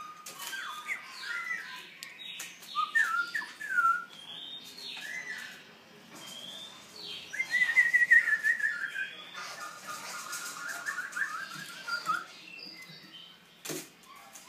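Young black-throat songbird practising its song: a rambling string of short whistled notes and chirps, with a loud run of quick notes falling in pitch about seven seconds in that carries on as a warble. One sharp click comes near the end.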